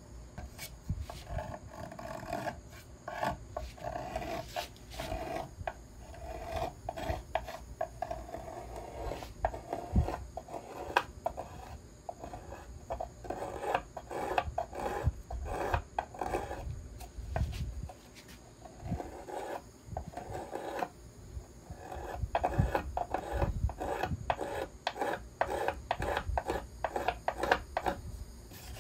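Small violin maker's plane shaving wood from the arch of a violin top in quick, short rasping strokes, with sharp clicks as the plane catches and lifts, easing off for a few seconds past the middle.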